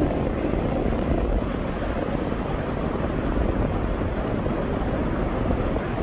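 Sea waves washing on the shore, with wind buffeting the microphone: a steady, rumbling noise with no single breaking wave standing out.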